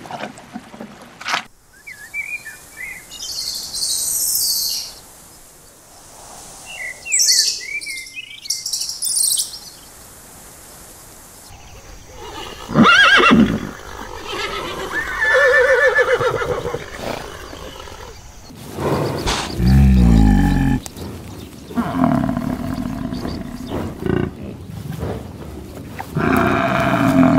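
A string of animal calls: first small birds chirping, then horses whinnying with rising, wavering neighs, then water buffalo lowing, the loudest a deep falling call about two-thirds of the way through.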